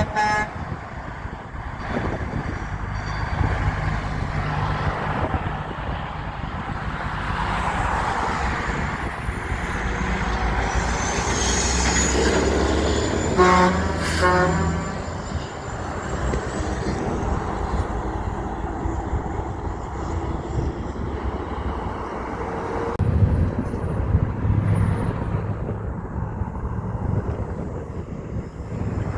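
Heavy trucks driving past with their diesel engines running; a truck horn toots briefly right at the start, and sounds again in two short blasts about halfway through.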